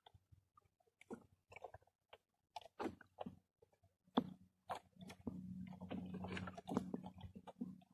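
Crunching and cracking as a hermit crab's shell is broken apart by hand for bait, in short irregular cracks. About five seconds in, a low steady hum joins for a couple of seconds.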